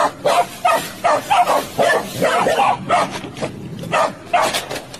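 Young dog barking repeatedly at close range in short barks, about three a second, with a brief pause about three and a half seconds in.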